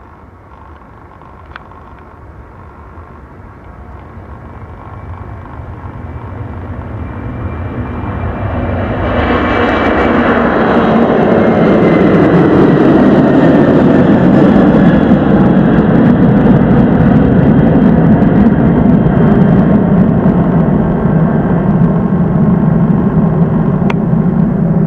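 Boeing 747-400F's four jet engines at takeoff power during the takeoff roll and departure. The sound builds steadily from faint to very loud over the first ten seconds, a high whine falling in pitch as the jet passes, then a loud steady low rumble.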